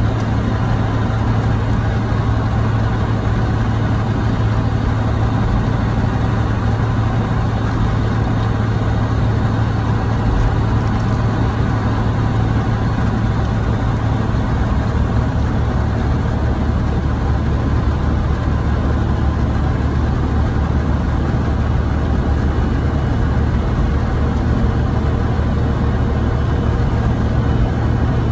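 Semi truck running, a steady low drone heard from inside the cab.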